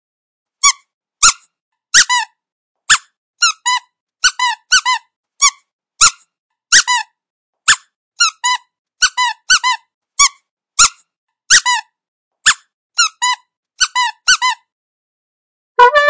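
Squeaky dog toy squeezed over and over, about one to two squeaks a second, some in quick pairs. Near the end a lower-pitched squeak of another toy begins.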